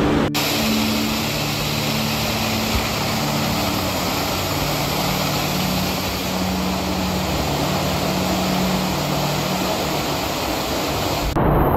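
Steady rushing of a mountain stream cascading over rocks in a narrow gorge, heard up close. The sound changes abruptly just after the start and again near the end.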